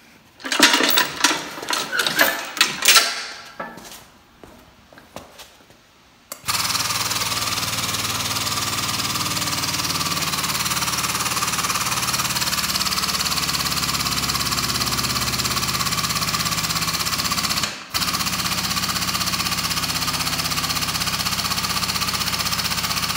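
Clanking and rattling of chains and metal for the first few seconds. Then a frame puller's pump starts and runs with a steady machine chatter, drawing the chain tight on the car's damaged door pillar, with one short break near the end.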